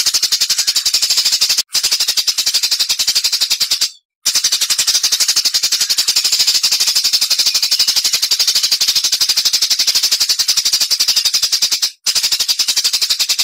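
Songbird giving a very fast, even rapid-fire run of high, sharp chips (a 'tembakan' burst), with short breaks a little under 2 s in, around 4 s in, and near the end.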